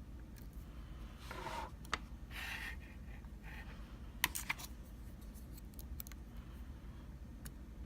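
Lock pick and tension wrench working in a pin-tumbler challenge lock: short metallic scraping rasps of the pick in the keyway and sharp clicks, with a quick cluster of clicks about four seconds in.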